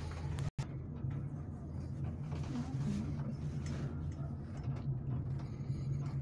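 Steady low hum and rumble inside a moving aerial cable-car cabin, cut off for a split second about half a second in.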